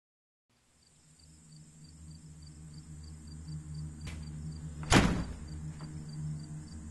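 Night ambience fading in: insects, cricket-like, chirping faintly about three times a second over a steady low hum, with one sudden loud thud about five seconds in.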